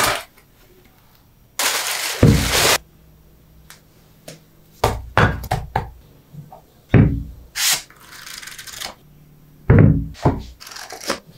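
Desk accessories and notepads being handled and set down on a wool felt desk pad: several soft thunks with short brushing and rustling sounds between them, the loudest thunks a little over two seconds in and near the end.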